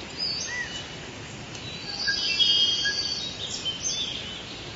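Several birds singing and calling, with short curved whistled notes and a denser trill in the middle that is the loudest part, over a steady outdoor hiss.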